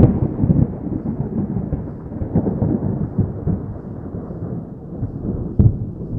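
Rolling thunder rumbling low and slowly fading away, with a short sharp crack about five and a half seconds in.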